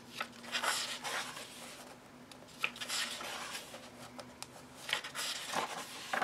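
Pages of a paperback coloring book being turned by hand: paper rustling in several short bursts.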